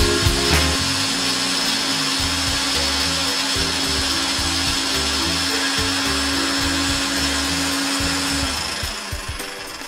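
Electric mixer grinder (mixie) running at speed, a steady whirring grind with a high whine, grinding ginger and garlic into paste; the motor is switched off and runs down near the end.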